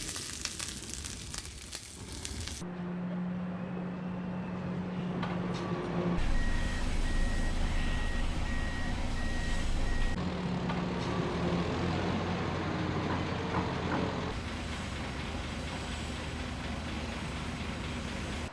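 Edited sound effects that cut abruptly from one to the next. A crackling noise comes first, then a vehicle engine running with a low steady hum. From about six seconds in, a repeating beep sounds about twice a second for roughly four seconds, then more engine rumble.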